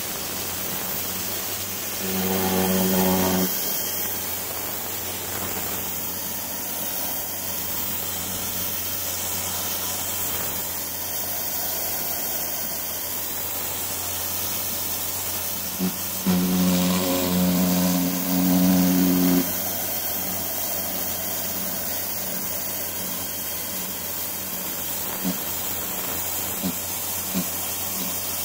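Pressure washer jet hissing steadily as it sprays across weathered wooden deck boards. A louder steady hum with a clear pitch comes in twice: briefly about two seconds in, and for about three seconds past the middle.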